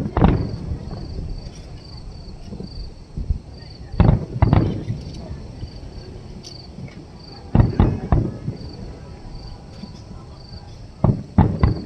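Aerial firework shells bursting, loud bangs that echo, in clusters: one at the start, a pair about four seconds in, another pair near eight seconds, and three quick ones near the end. Crickets chirp steadily throughout.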